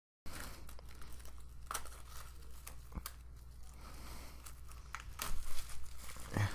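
Clear plastic shrink wrap being peeled and torn off a phone box: a run of crinkling and crackling with small sharp clicks, louder for a moment about five seconds in.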